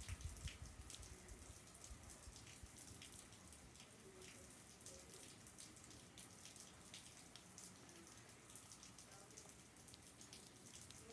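Faint rain falling, an even hiss with scattered drips and patters ticking through it.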